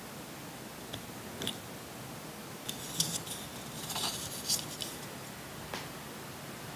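Small sharp clicks and scrapes of a hard-plastic miniature hand wash basin being turned and handled between fingers, a few ticks at first and then a dense cluster through the middle, over a steady hiss.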